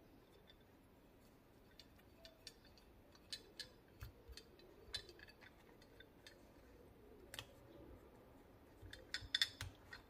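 Faint, scattered light clicks and taps of small carburetor parts being handled and fitted, with a quick cluster of clicks near the end.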